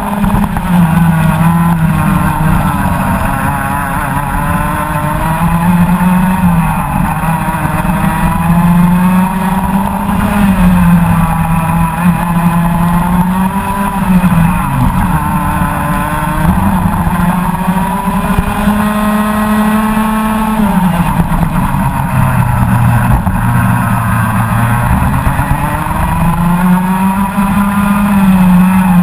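Rotax Max Senior 125 cc single-cylinder two-stroke kart engine running at racing speed, heard up close from the kart. It rises in pitch on the straights and drops as the kart slows for corners, several times over, with the deepest drop about two-thirds of the way through.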